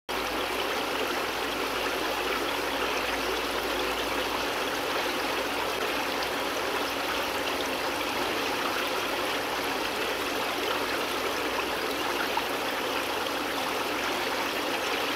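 Steady rushing, bubbling water in the aerated chamber of a pond filter, where air churns Kaldnes moving-bed filter media.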